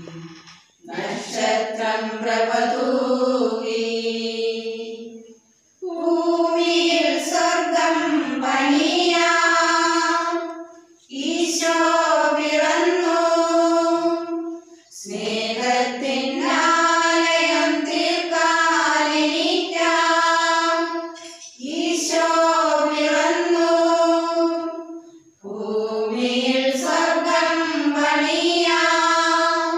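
A small choir of women singing a Christmas carol together, unaccompanied. The song comes in phrases of a few seconds, with held notes and short breaks between them.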